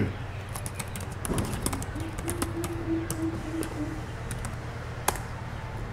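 Computer keyboard typing: a quick run of key clicks, then a single louder keypress near the end. A low steady hum lies underneath, and a low held tone lasts about two seconds in the middle.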